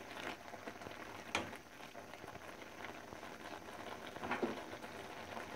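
Thick carrot halwa simmering and bubbling in a frying pan, with a silicone spatula stirring through it at first, and two sharper clicks.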